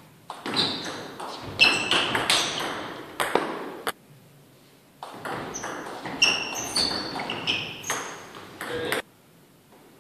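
Table tennis rallies: the ball is struck by the paddles and bounces on the table in a quick run of sharp, high pinging knocks that ring in the hall. One rally stops a little under four seconds in; a second starts about a second later and stops shortly before the end.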